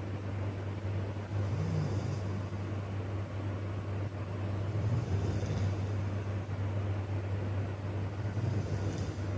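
A sleeping man snoring, one breath about every three and a half seconds, over a steady low drone.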